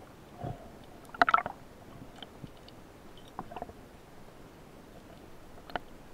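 Muffled underwater ambience through a camera's waterproof housing, with scattered faint clicks and a short crackling cluster of clicks a little over a second in.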